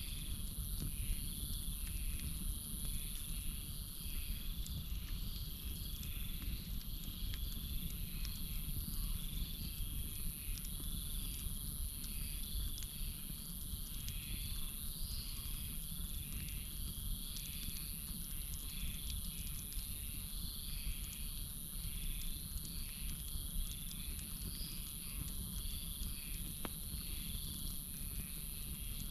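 Campfire crackling with scattered small pops, under a steady high-pitched drone of night insects and a rhythmic chirping call, from crickets or frogs, repeating about one and a half times a second.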